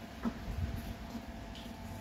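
Faint taps of chopsticks against bowls and plates during a meal, a couple of small ticks over a steady low hum.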